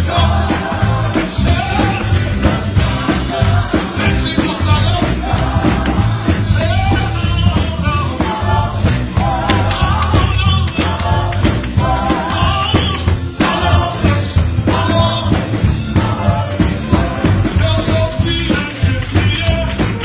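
Upbeat gospel praise music: voices singing over a driving beat with a shaking tambourine and heavy bass.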